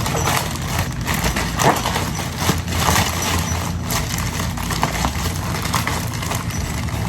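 Packaging being torn open by hand: a dense, irregular crackling and rustling of many small clicks as the wrapping is pulled apart.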